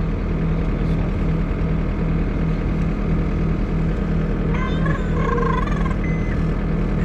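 Skid loader's engine running steadily. A brief high, wavering pitched sound cuts in about five seconds in.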